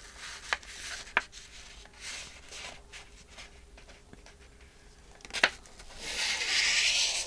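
Paper sheets being handled and slid into place, with soft rustling, a few sharp taps, and a louder rasping rub of paper lasting about a second near the end.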